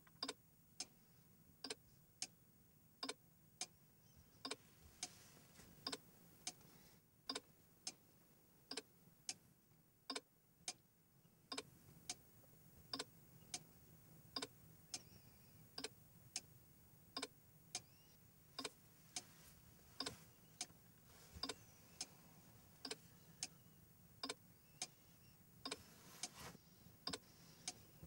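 Steady mechanical ticking, about three ticks every two seconds, over near silence.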